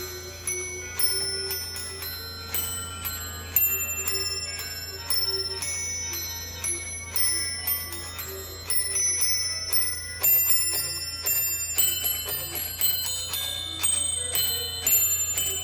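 Santa's Marching Band musical bell decoration playing a Christmas tune: small brass bells struck one after another, several a second, each ringing on as the melody moves between pitches. A steady low hum runs underneath.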